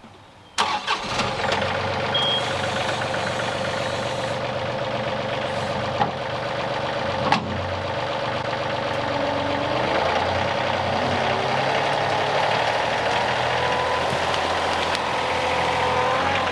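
John Deere 2038R compact tractor's three-cylinder diesel running steadily as the loader bucket is driven into brush, starting abruptly about half a second in. Two sharp knocks come a little past the middle, and a whine rises in pitch midway and again near the end.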